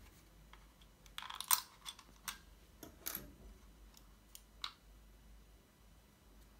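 Hard plastic clicks, taps and rattles from handling a Corsair Harpoon RGB Wireless mouse as a small piece is taken off its underside and the USB receiver is lifted out. There is a cluster of clicks about a second in, more around two and three seconds, and a last sharp click a little before five seconds.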